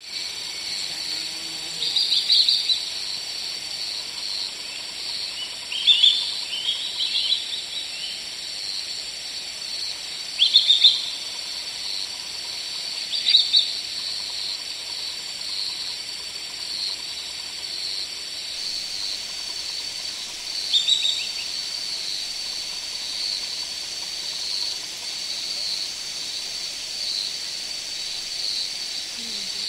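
Nature ambience: a steady high insect drone with short bursts of bird chirps, about five of them, spaced a few seconds apart.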